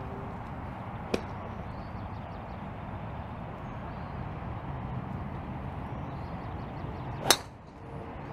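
Golf driver striking a teed ball once near the end: a single sharp crack. A fainter click comes about a second in, over a steady background hiss.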